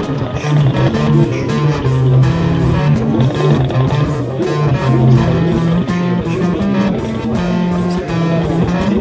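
Music with guitars over a bass line and a steady beat.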